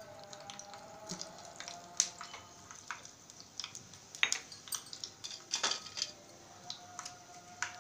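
Fenugreek seeds frying in hot oil in a small tempering pan: irregular sharp pops and crackles, several a second, as the seeds crisp.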